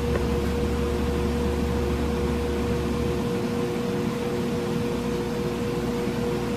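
Steady hum of a small electric motor with a few steady tones; a deeper part of the hum drops away about three seconds in.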